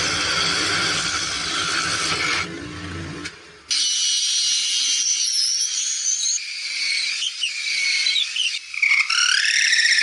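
Drill press running as a spade bit bores through wood and resin, fading out about two and a half seconds in. After a brief gap, a cordless drill's motor whines while boring into a turned wooden lamp column; its pitch wavers and glides with the trigger, then holds steady near the end.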